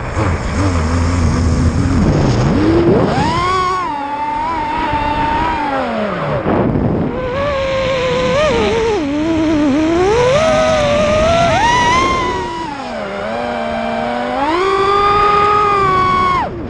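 Eachine Wizard X220 FPV racing quadcopter's brushless motors whining, the pitch repeatedly rising and falling as the throttle is worked in flight. The whine drops briefly a few times and cuts off suddenly at the end.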